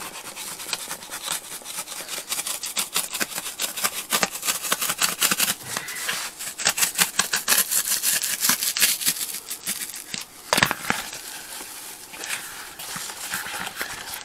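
Utility knife blade sawing and scraping through a stiff black engine-bay cover panel in rapid, scratchy strokes. The material is hard to cut. The cutting is busiest in the middle and pauses briefly before one sharper stroke.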